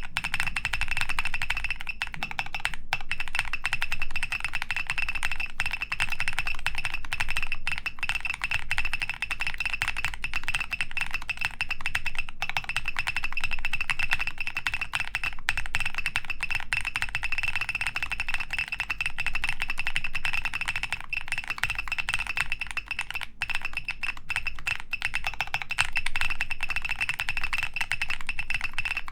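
Steady typing on a G-Square Studio Vintage 60S mechanical keyboard with Vertex V-One switches and DCS keycaps on a polycarbonate plate, a rapid stream of key clacks. Each keystroke also sets off the keyboard's electronic beeper, so a high beep tone sounds almost without break over the typing.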